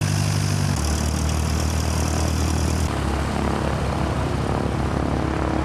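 Helicopters running on the ground: a steady, loud, low engine-and-rotor drone, with a high hiss over it for the first three seconds. The sound changes abruptly about a second in and again about three seconds in.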